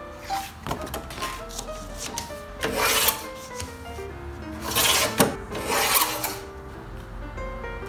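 Olympia rotary paper trimmer's cutting head sliding along its rail and slicing through sheets of sticker paper: three cutting strokes, each about half a second long and roughly a second and a half apart, with a sharp click just after the second. Light music with plucked notes plays underneath.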